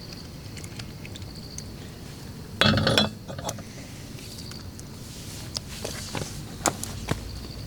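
Small clinks and knocks of cookware and utensils being handled, with one louder clatter lasting about half a second, about two and a half seconds in.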